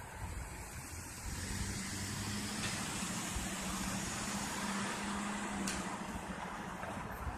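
A motor vehicle's engine and tyres passing by, growing louder about a second in and easing off near the end, with a low steady engine hum.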